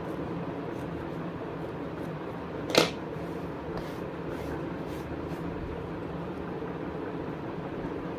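Steady background hum and hiss of room noise, with one sharp click about three seconds in and a few faint ticks after it.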